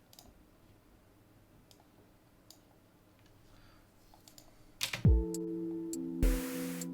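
Scattered computer mouse and keyboard clicks, then about five seconds in, playback of an electronic track starts: a deep kick drum that falls in pitch, held synth notes and a burst of noise from a snare or clap.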